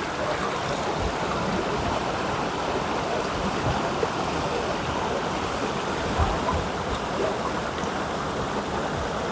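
Mountain river rushing steadily over rocks, a constant even roar of water, with a few soft low thumps.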